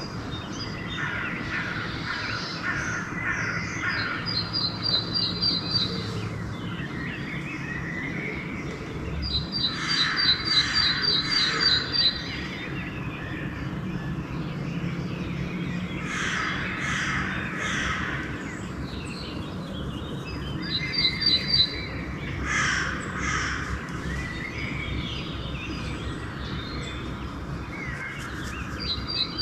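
Dawn bird chorus: crows cawing in several bouts of repeated harsh calls, while a smaller bird repeats a short, fast, high trill every few seconds. A steady low hum runs underneath.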